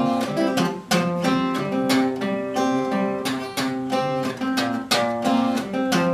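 Acoustic guitar strummed in a steady rhythm, chords ringing between strokes: an instrumental passage between sung lines of a folk song.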